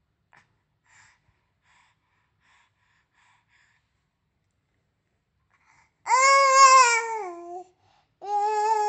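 Baby vocalising with a pacifier in its mouth: two long, loud, high-pitched calls. The first starts about six seconds in and drops in pitch at its end; the second starts about two seconds later and is held steady.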